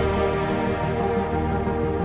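Soundtrack music: sustained, layered tones held steadily, with no speech.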